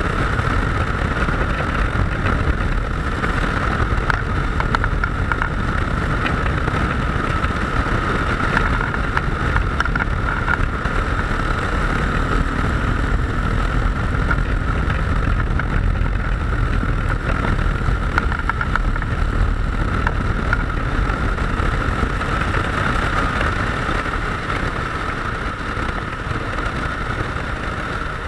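Motorcycle on the move, a steady engine drone mixed with wind rushing over the microphone, easing slightly near the end.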